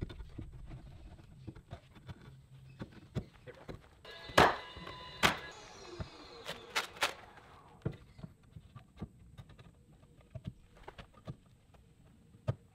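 Scattered knocks and clacks of Versetta Stone siding panels being handled and fitted against the wall. Two louder knocks with a short ring come about four and five seconds in, and a few more sharp knocks follow around seven seconds.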